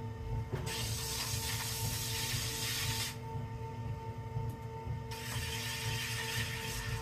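Electric potter's wheel running at a steady speed with a constant motor hum and whine. Twice, a hissing rub of about two seconds each is heard as hands work against the spinning clay cup.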